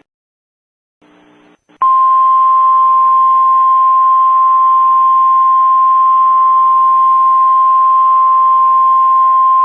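Emergency Alert System-style attention tone: a loud, single steady beep-like tone that starts about two seconds in and holds unbroken over a faint hiss.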